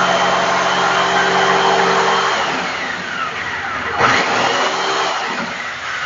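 Handheld electric jigsaw cutting a round speaker hole in a wooden speaker box panel, its motor running steadily. About two seconds in the motor is let go and winds down, then it is started up again about four seconds in.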